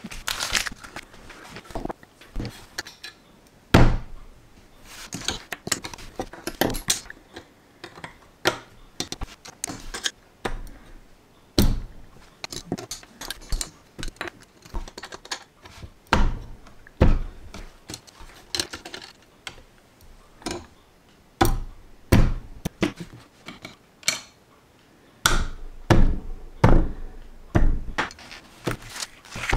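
LEGO bricks being handled and assembled with metal tweezers: irregular plastic clicks, taps and knocks as pieces are picked up, set down on the tabletop and pressed together, with a few louder thuds.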